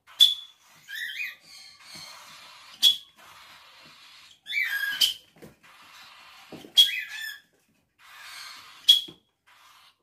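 Short, sharp pips on a hand whistle, blown five times about two seconds apart, used as a cue in training a young parakeet to hop to the hand. Between the pips there are fainter chirps from the bird.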